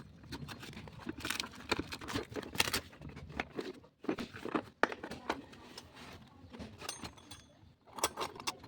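Irregular clicks, knocks and rustling of small hard objects being handled, with no drill or motor running.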